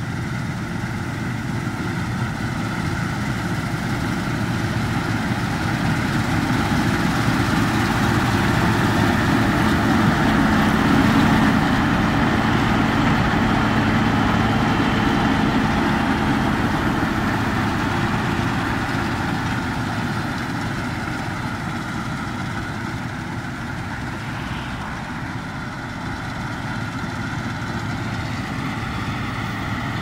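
Claas Lexion 530 combine harvester cutting wheat with its Claas C540 header. Its diesel engine and threshing machinery run with a steady drone that grows louder as it passes close by, about ten seconds in, then fades.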